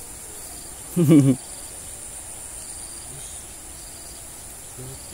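Steady high-pitched insect chirring, with a brief spoken exclamation about a second in.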